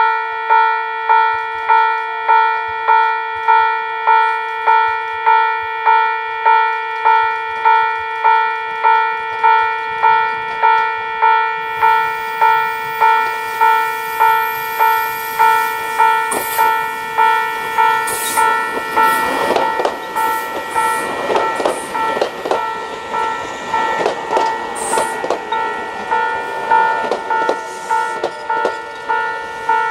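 Japanese level-crossing warning bell ringing steadily, about one and a half dings a second. From about twelve seconds in, the Tobu 634-type Skytree Train electric multiple unit rolls past, adding wheel-on-rail rumble and clacks, loudest in the second half.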